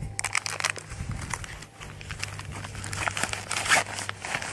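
Fabric stuff sacks rustling and crinkling as hands handle them, in quick irregular crackles, loudest a little before the end.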